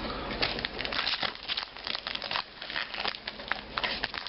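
Foil booster pack wrapper crinkling as it is handled and opened: a quick, irregular run of crackles.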